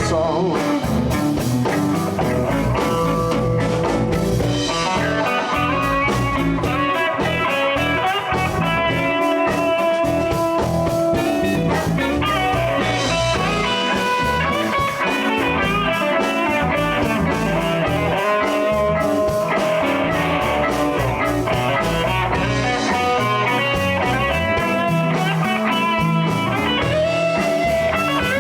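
Live blues band playing an instrumental passage: electric guitar lines over bass and drum kit.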